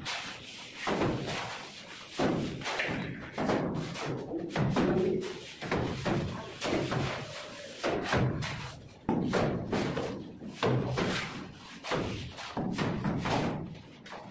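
Cement-sand plaster mortar flung onto a wall with a plastic scoop, landing in repeated thuds about once every second or so, with music playing underneath.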